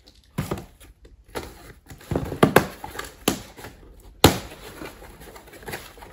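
A small cardboard box being handled and opened by hand: irregular sharp cardboard knocks and flap clicks with rustling between them, the loudest about four seconds in.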